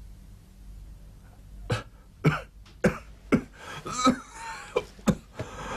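People coughing and clearing their throats: a quick string of short coughs, about two a second, starting about a second and a half in.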